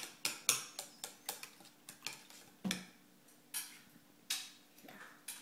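Chopsticks clicking against a stainless steel bowl while beating eggs: a run of sharp ticks, about four a second at first, slowing to about one a second after the first two seconds.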